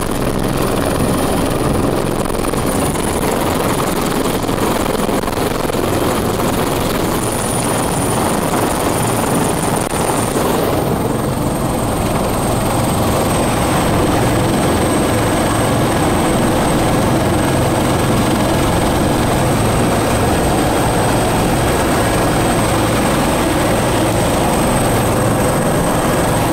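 Bell 412 helicopter heard from inside its cabin: its twin turbine engines and rotor running steadily. A thin high turbine whine drops slightly in pitch about ten seconds in.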